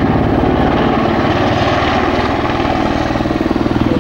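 Super Puma helicopter flying close overhead, its four-bladed main rotor chopping in a fast, steady beat over the engine noise; the beat grows more pronounced near the end.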